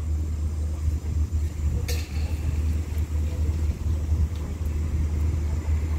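Diesel engine of a passenger train standing at the platform, idling with a steady low rumble. A brief click comes about two seconds in.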